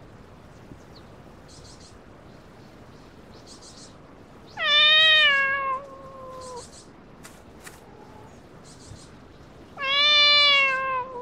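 A cat gives two long, drawn-out yowls a few seconds apart, each sagging slightly in pitch at the end: the warning call of a cat squaring off with another in a fight.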